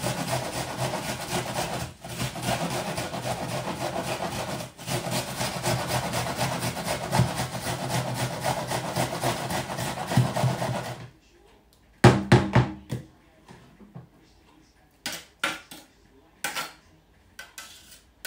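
Onion being grated on a metal box grater: a continuous fast rasping scrape, with two brief pauses, that stops about eleven seconds in. After it, a few separate knocks and clatters.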